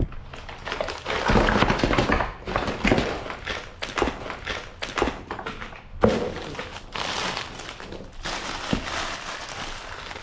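Crinkling and rustling of plastic bags and shredded plastic Easter grass being handled and pulled apart, with a few sharp knocks, the loudest about six seconds in.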